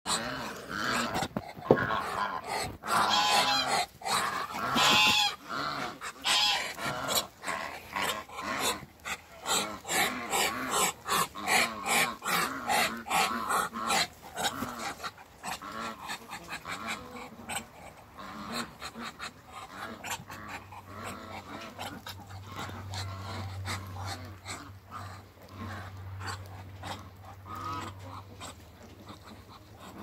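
Muscovy ducks hissing and huffing in quick, repeated breathy puffs. The puffs are loudest through the first half and grow fainter later.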